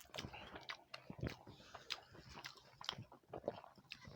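Close-up eating sounds: chewing, with irregular small wet mouth clicks and smacks.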